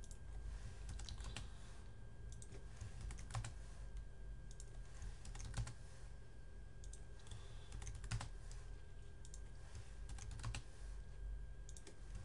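Sparse computer keyboard keystrokes and clicks in small irregular groups, with pauses between them, over a steady low electrical hum.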